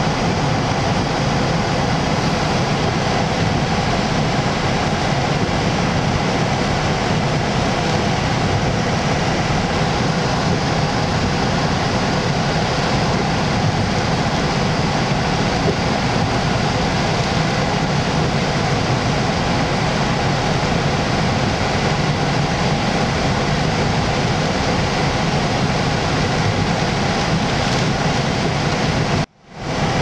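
Hurricane-force Bora wind and heavy surf breaking on a rock breakwater: a loud, steady roar. It is broken once by a brief dropout about a second before the end.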